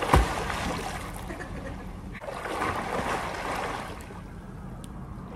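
A swimmer's strokes splashing in a pool close to the microphone: a loud slap of water just after the start, then rushing, churning splashes that fade as she swims away.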